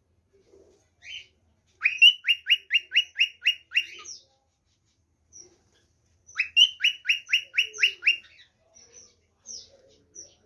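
Cockatiel singing: two runs of about eight quick notes, each note falling in pitch, at roughly four notes a second. The first run starts about two seconds in and the second just past the middle, with a few single chirps between them.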